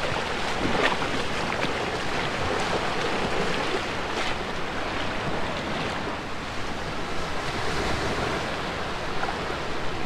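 Small surf waves breaking and washing over a shallow sandy beach, with wind buffeting the microphone and some light splashing as someone wades through the shallows.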